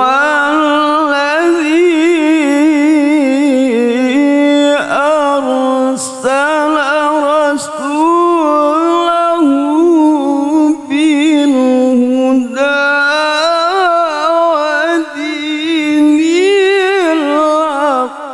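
A male qari reciting the Quran in the melodic tilawah style into a microphone. He holds long, heavily ornamented notes with fast wavering pitch, broken by a few short breaths, and the line climbs higher near the end.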